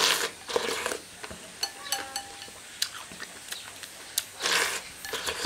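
A person eating rice soaked in hot water straight from the bowl with chopsticks. Two noisy slurps come at the start and again about four and a half seconds in, with chewing and small clicks between.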